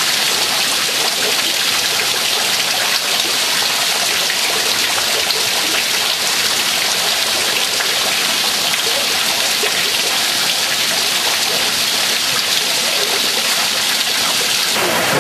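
Heavy rain falling steadily onto standing floodwater, a dense, even hiss with no breaks.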